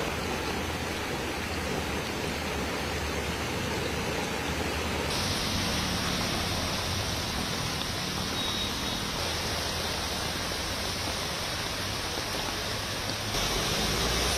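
Steady rush of heavy rain and running floodwater, with no distinct events. It turns brighter and hissier about five seconds in and shifts again near the end.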